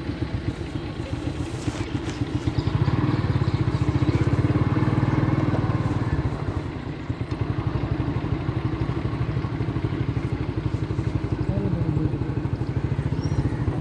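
An engine running steadily with a rapid low putter, swelling louder for a few seconds about three seconds in.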